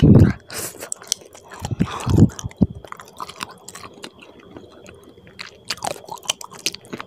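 Close-miked wet chewing and lip smacking of rice and tilapia fish curry eaten by hand, with many short mouth clicks. There are two loud dull thuds, at the start and about two seconds in. Later, fingers squish rice in the curry on the plate.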